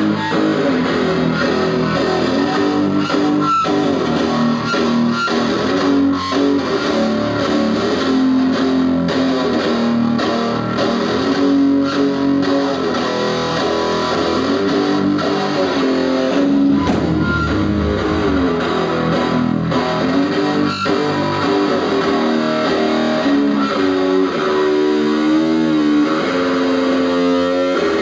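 Live indie noise rock band playing: electric guitar lines over bass guitar and drums, loud and continuous.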